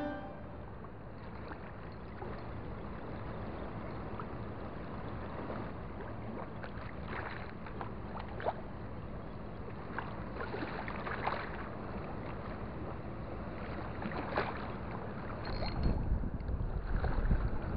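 A steady wash of estuary water and wind, with a few scattered light clicks. Near the end, wind buffeting the microphone grows stronger.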